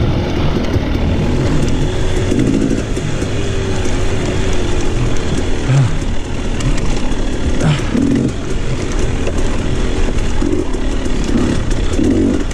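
Dirt bike engine running as the bike is ridden along a rough trail, with a couple of sharp knocks about six and eight seconds in.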